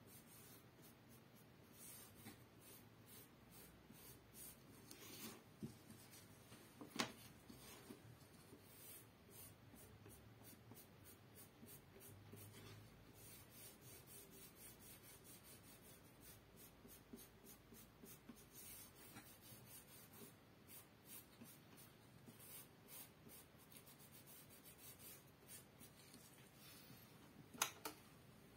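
Faint scratching of a dye dauber being stroked back and forth along a strip of leather as leather dye is applied. A sharp click comes about 7 seconds in and another near the end.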